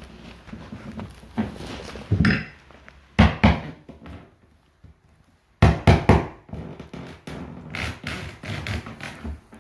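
Knocks and thuds of hand tools and wooden floor panels being worked, in several clusters of sharp, loud knocks with quieter scraping between.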